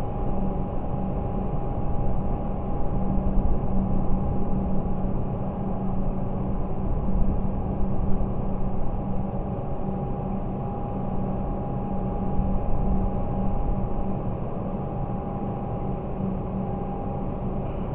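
Electric train standing at the station platform, giving a steady hum with two held tones over an uneven low rumble.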